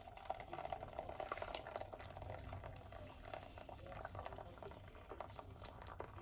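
Thick blended sauce pouring from a blender jar through a fine-mesh strainer into a stainless steel saucepan: faint, with many small wet ticks and plops as the sauce lands.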